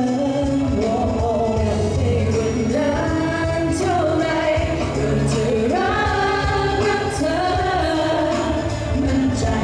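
Pop song sung live over a band, with singers' voices changing note about once a second above a steady bass line.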